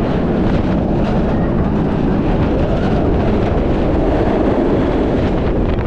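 Kumba, a steel looping roller coaster, rumbling along its track at speed, with heavy wind buffeting the ride camera's microphone.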